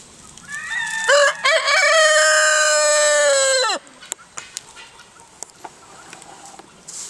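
Rooster crowing once: a few short broken notes, then a long held note that drops away sharply at the end, about three seconds in all.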